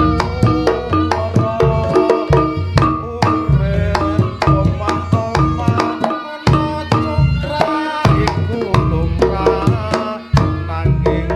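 Reog Ponorogo music: kendang hand drums beat a fast, busy pattern under a pitched melody, over a heavy low bass.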